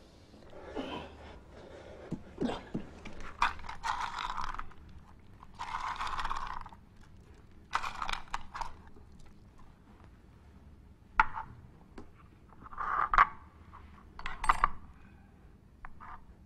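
Intermittent scraping and rubbing by hand, with a few sharp clinks in the second half.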